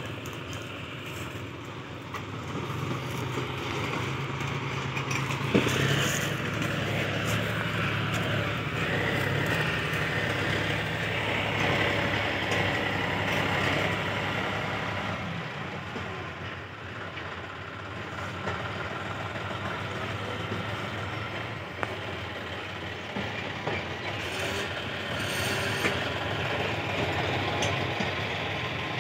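Diesel farm tractors running and driving past while hauling trolleys of soil, a steady engine drone. It is loudest over the first half and eases off a little after about fifteen seconds.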